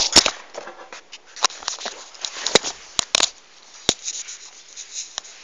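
Handling noise on a phone's microphone: an irregular run of sharp knocks and clicks with rustling between them as the phone is moved about and covered.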